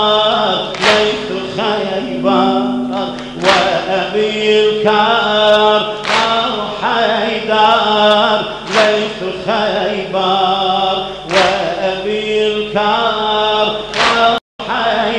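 A crowd of men chanting a Shia mourning lament (latmiyya) in unison, with a loud collective slap about every two and a half seconds as they beat their chests in time. The sound cuts out for an instant near the end.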